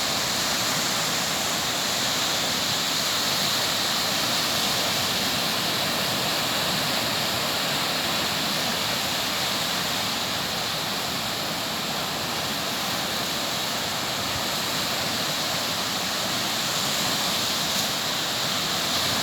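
Sea surf washing onto a beach: a steady rush of breaking waves that eases slightly midway and builds again near the end.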